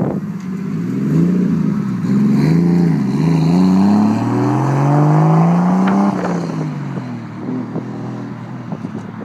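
Turbocharged Nissan RB30DET straight-six in a Datsun 280Z accelerating hard away, its pitch climbing in three pulls with brief dips between. About six seconds in, the throttle lifts and the engine sound drops away and fades as the car moves off.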